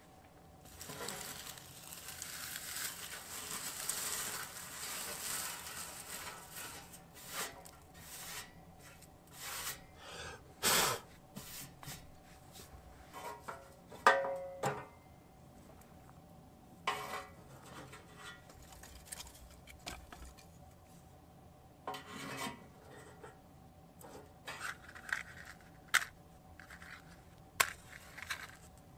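Hands working at a homemade sheet-metal tent stove: several seconds of rustling and scraping, then scattered knocks and clicks, with a sharp metallic clank about halfway through as the stove's front door is shut.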